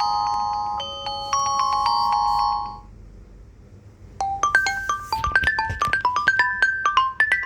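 Xiaomi Redmi 13C ringtones played one after another. A slow melody of held, ringing notes stops a little under three seconds in, and after a brief gap a quicker melody of short notes begins.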